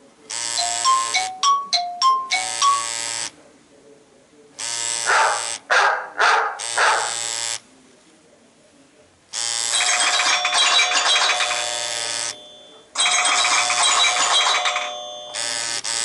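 iPhone 3GS (model A1303) loudspeaker playing previews of its built-in ringtones one after another. There are four electronic tone sequences of about three seconds each with short pauses between them. The first has clear chime notes.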